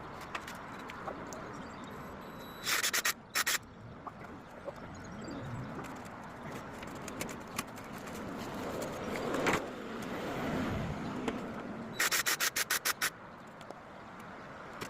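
Sandstone being rubbed and sanded, a steady scraping, broken by two short bursts of rapid clicks, one about three seconds in and one near the end.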